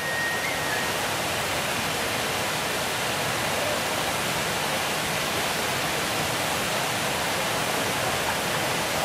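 A row of ground fountain fireworks (set-piece gerbs) spraying sparks, a steady, even hiss.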